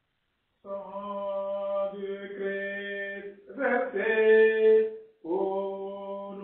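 A male voice chanting slow, long-held notes on a steady pitch, with short breaks about three and a half and five seconds in.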